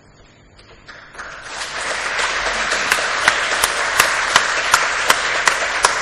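Audience applauding. The clapping starts about a second in and builds to a full, steady round, with one nearby pair of hands standing out in sharp, even claps just under three a second.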